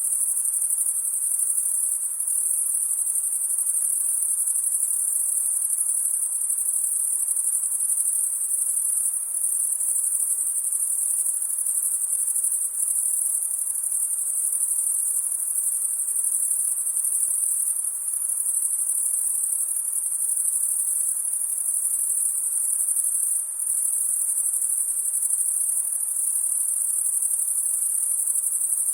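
Summer-night chorus of crickets: a dense, unbroken high-pitched trill from many insects at once, with a few brief dips in loudness.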